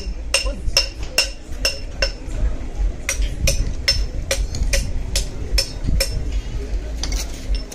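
Metal-on-metal tapping, about two to three evenly spaced strikes a second, each ringing briefly, with a pause of about a second near the middle.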